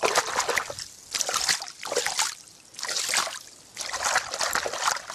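Water sloshing and splashing against a boat's hull in short bursts, about one a second.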